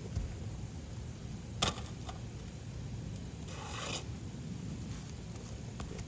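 Handling noise: one sharp click about a second and a half in, then a short scrape near the middle, over a steady low rumble.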